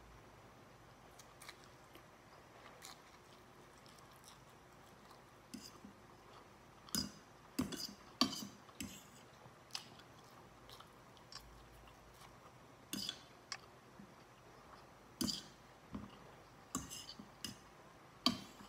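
Close-miked eating of pancit bihon rice noodles: quiet chewing and mouth sounds, with a metal fork clinking and scraping on the plate in sharp scattered clicks, clustered about seven to nine seconds in and again through the last third.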